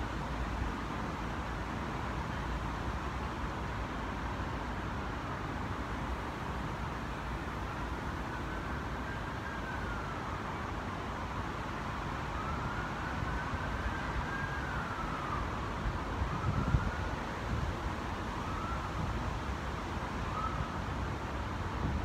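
A distant emergency-vehicle siren wailing faintly about eight seconds in, in slow rising and falling sweeps that turn to shorter, quicker ones near the end, under a steady rush of wind on the microphone.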